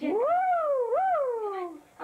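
A girl's long, sing-song wordless vocal call. It rises, dips, rises again about a second in, then slides down in pitch and fades.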